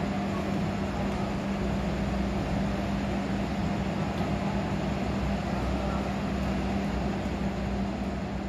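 Passenger train rolling past a station platform: a steady rumble of wheels on rails with a steady low hum, starting to fade near the end as the train draws away.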